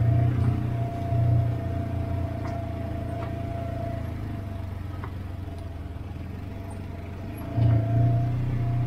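Off-road vehicle's engine running along a dirt trail, with a steady whine over it. The engine is louder near the start and picks up again a little before the end, with a few light ticks.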